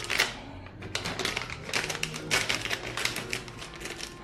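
Scissors snipping open a cardboard box of powder: a quick, irregular run of sharp snips and clicks from the blades and packaging.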